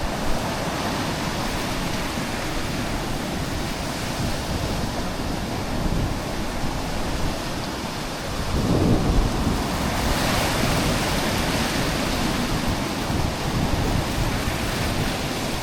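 Wind buffeting the microphone over the wash of sea waves, a steady rushing noise with a louder gust about nine seconds in.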